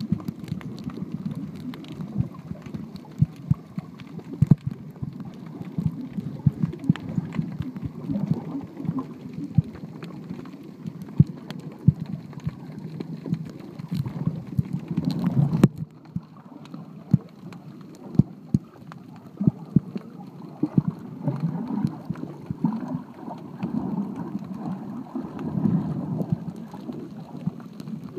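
Underwater sound picked up by a submerged camera: a muffled low rumble of moving water with frequent sharp clicks and crackles. The rumble drops suddenly a little past halfway, then builds again.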